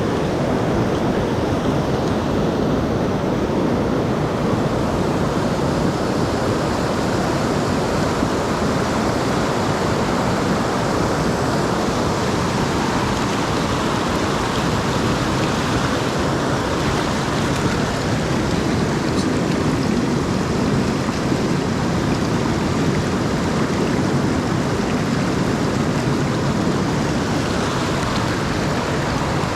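Rushing water of a mountain stream swollen by rain, a steady unbroken roar.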